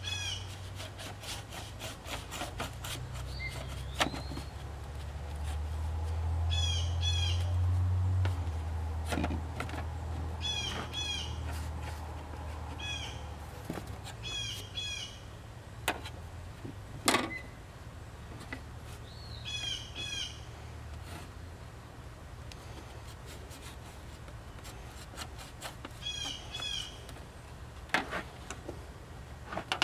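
A songbird calling again and again in short clusters of quick chirps every few seconds, over scattered sharp clicks and taps from a handsaw's handle and fittings being put back together. A low rumble swells and fades about a third of the way in.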